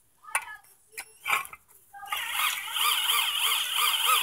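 A few light metal clicks, then about two seconds in a cordless drill starts driving a brake bracket bolt, its motor whine swinging up and down in pitch about three times a second as the load rises and falls with each turn.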